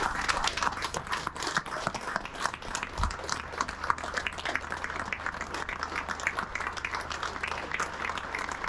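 A crowd of people lining a street applauding: steady hand-clapping from many pairs of hands.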